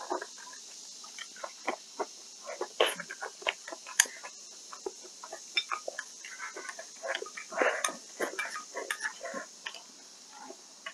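Close-up eating sounds of a person chewing and smacking on a mouthful of rice, with many short irregular wet smacks and occasional sharp clicks.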